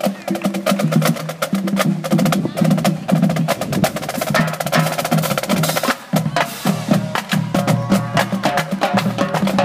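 Marching band playing on the march: the drumline's rapid snare strokes and bass drum hits over sustained brass notes from sousaphones and saxophones.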